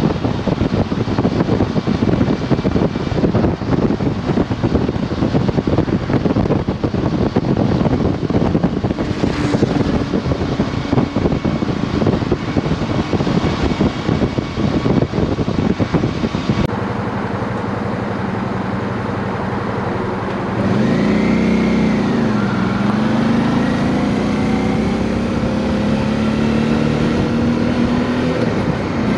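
Motorcycle riding at speed, heard from a camera on the bike: wind rushing over the microphone with the engine underneath. About two-thirds of the way through the wind noise drops and the engine comes forward, its pitch rising and falling as the bike changes speed.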